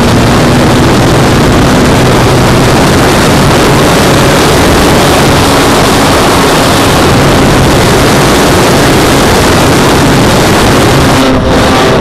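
Onboard sound of the Extreme Flight Edge 540T 48-inch RC plane in flight: a steady motor and propeller drone heard under heavy wind rush on the plane-mounted microphone, with a brief dip just before the end.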